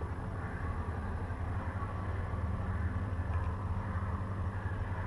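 Steady low mechanical hum, like an engine or machine running at an even speed.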